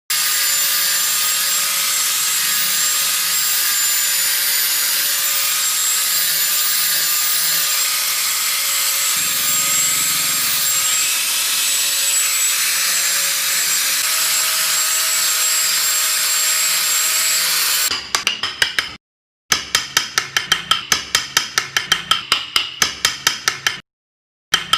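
Power woodworking tool running steadily with a constant high whine for most of the time. After an abrupt cut it gives way to rapid, even scraping strokes on wood, about five a second.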